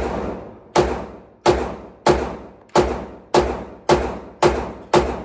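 A 9mm handgun being fired in steady slow succession, nine shots a little over half a second apart, each a sharp, harsh crack that trails off in a short echo.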